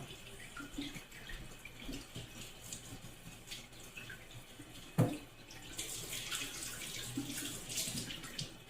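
Kitchen tap running into a sink while raw chicken is rinsed under it, with one sharp knock about five seconds in; the water grows louder for the last few seconds.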